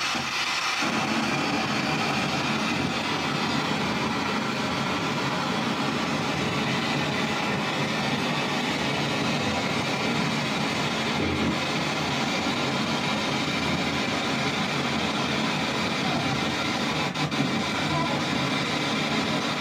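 Spirit box radio sweeping rapidly backwards through the FM band: a steady wash of static with faint snatches of broadcast sound chopped in and out.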